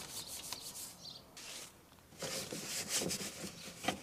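A small detailing brush scrubbing inside a car wheel around the brake caliper and rotor hub: faint, quick rubbing strokes that come thicker from about halfway through.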